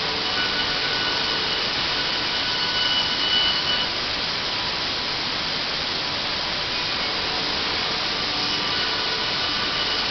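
Panel beam saw for cutting plywood sheets running with a steady whirring hiss. A higher whine swells briefly about three seconds in.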